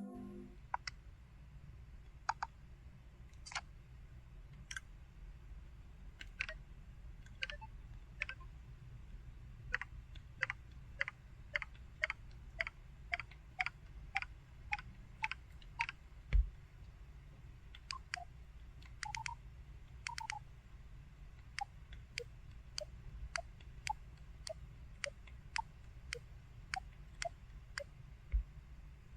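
Canu F1100 mobile phone's keypad being pressed over and over, a long series of short clicks: a few spaced-out presses, then runs of about two a second.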